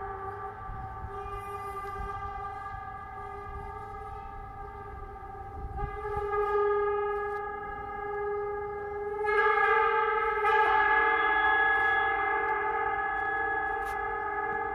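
Paiste 34-inch Symphonic gong ringing, its overtones sustaining as a steady humming wash while it is played with a pair of mallets. It swells louder about six seconds in and again, more strongly and brighter, a few seconds later.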